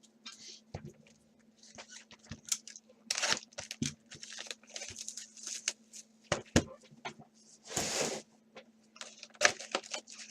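Baseball card boxes and foil packs being handled and torn open: irregular rustling, crinkling and tearing of the wrappers, with a few light knocks.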